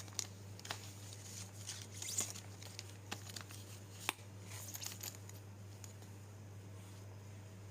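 Light clicks, taps and crinkling from handling iPhone back glass covers in their plastic wrapping, with the sharpest tap about four seconds in. After about five seconds the handling stops, leaving a steady low hum.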